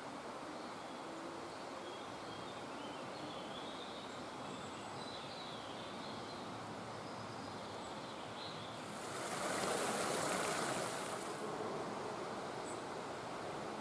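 Steady forest ambience: an even rushing noise with faint, scattered bird chirps. About nine seconds in, a louder hissing rush swells for around two seconds and then eases off.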